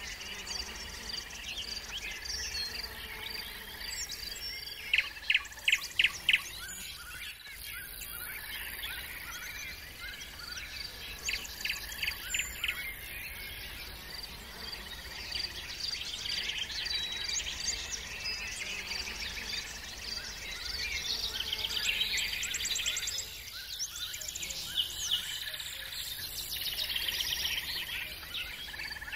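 Songbirds singing and calling over a steady, fast chirping of insects. About five seconds in, a bird gives a quick run of about five loud, sharp notes.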